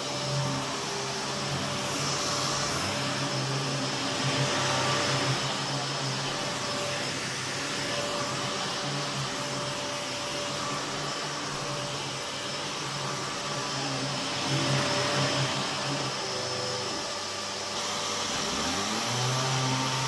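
Prototype Miele S7 upright vacuum cleaner running, a steady motor hum with a whooshing airflow. Near the end the motor sound dips and then winds back up in pitch.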